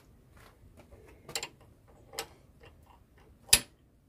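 Irregular metallic clicks and ticks as a bicycle pedal is turned by hand to thread it into the crank arm, with a sharper click a bit past three and a half seconds.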